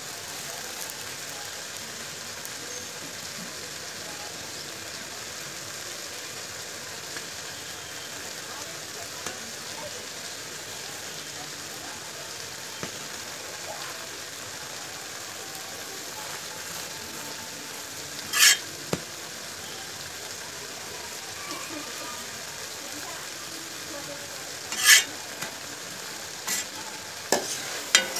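Burger bun toasting in oil on a flat tawa griddle, a steady sizzle, with a few sharp knocks in the second half as the bun is handled and turned.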